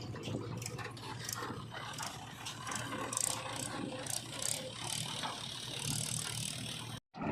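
JCB 3DX backhoe loader's diesel engine running with frequent metallic clanks and rattles from the working machinery, cut off abruptly by a moment of silence near the end.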